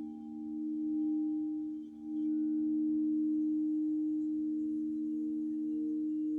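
Crystal alchemy singing bowls ringing: several steady tones sounding together, the sound dipping briefly and swelling again about two seconds in.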